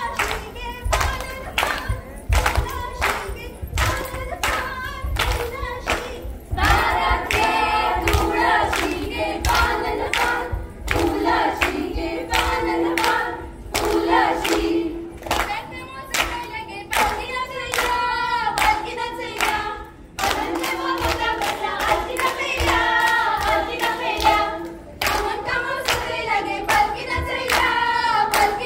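A group of women singing a Goan fugdi folk song together without instruments, keeping time with a steady rhythm of hand claps.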